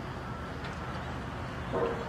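A motor running steadily with a low hum, and a short loud call about three-quarters of the way in.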